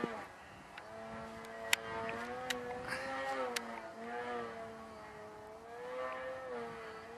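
Radio-controlled aerobatic model airplane in flight, its motor and propeller running with the pitch rising and falling as the throttle changes. A few sharp clicks come about two to three and a half seconds in.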